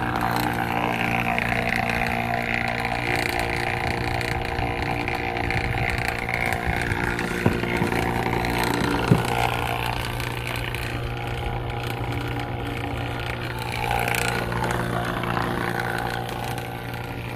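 HVAC vacuum pump running with a steady, even motor hum while it pulls a vacuum on an air-conditioning line set. Two brief knocks come around the middle.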